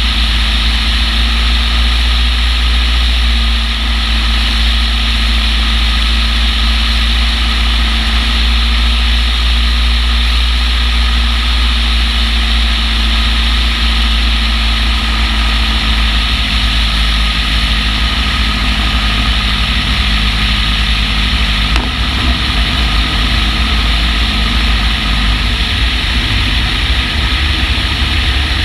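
Long-EZ's rear-mounted pusher engine and propeller running steadily, with heavy low wind rumble on an exterior-mounted camera's microphone.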